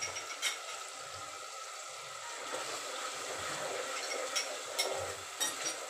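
Masala frying in a metal pot on a gas stove with a steady sizzle, while a spatula stirring it knocks and scrapes against the pot a few times.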